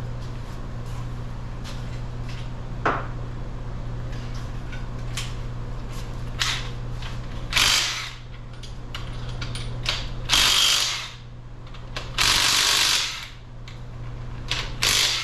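Power tool, most likely an impact wrench or power ratchet, run in four short bursts in the second half, loosening the main bearing cap bolts on a small-block Chevy 350. A few metal knocks come earlier, over a steady low shop hum.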